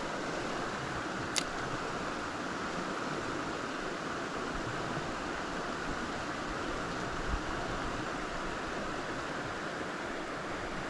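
Mountain trout creek running over rocks in a steady rush, with a single sharp click about a second and a half in.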